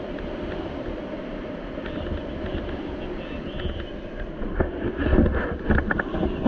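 Airflow buffeting the camera microphone in paraglider flight, a steady low rumble that turns louder and gustier in the last two seconds.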